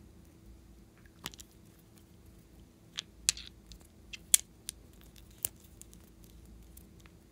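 Small plastic avocado-shaped makeup cases being handled and twisted open: a scatter of sharp plastic clicks and taps, loudest around the middle.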